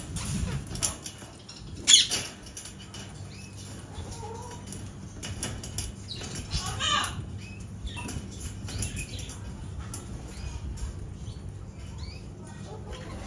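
Aviary birds flapping their wings and giving scattered short chirps and calls over a steady low hum. There is a sharp loud sound about two seconds in.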